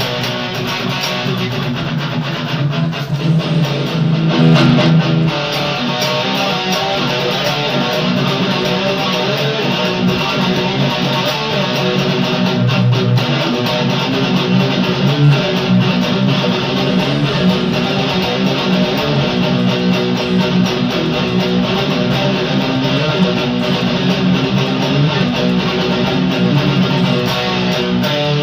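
Guitar music: a guitar playing strummed and picked chords with sustained notes.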